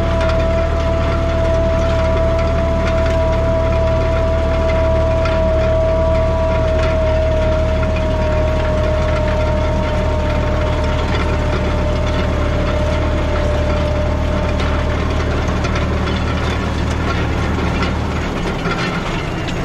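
Tractor engine running steadily under a strong, steady high whine, overseeding with a Hatzenbichler Vertikator harrow-seeder. The whine fades a few seconds before the end, and the low engine drone drops away near the end.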